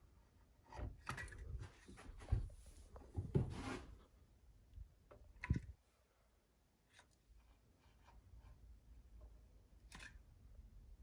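Faint handling sounds of sealing the drain adapter's edge with silicone: scraping and rubbing in the first few seconds, a sharp knock about five and a half seconds in, and a single click near the end.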